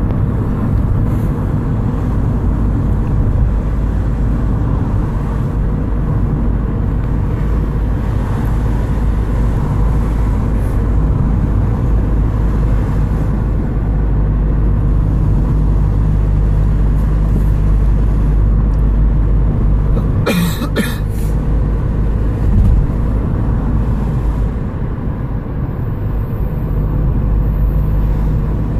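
Steady low rumble of a car's engine and tyres on asphalt, heard from inside the cabin while driving, with one short sharp noise about twenty seconds in.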